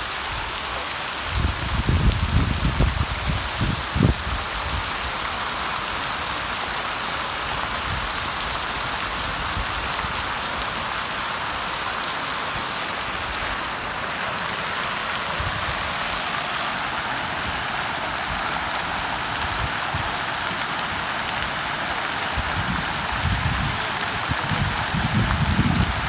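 Water jets of a large public fountain falling and splashing into the basin, a steady hiss of spray. Bursts of low rumble on the microphone come a couple of seconds in and again near the end.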